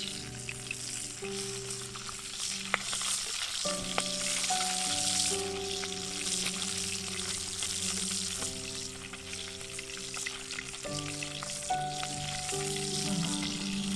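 Whole fish frying in hot oil in a cast iron pan, sizzling steadily, as a metal spoon bastes oil over them with a few light clicks against the pan. Soft background music with long held notes plays underneath.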